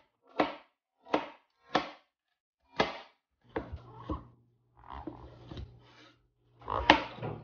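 Chef's knife chopping broccoli on a plastic cutting board: four sharp knocks, evenly spaced about two thirds of a second apart. From about three and a half seconds in come softer, quicker cuts through mushrooms over a low steady hum, and a loud knock of the blade on the board near the end.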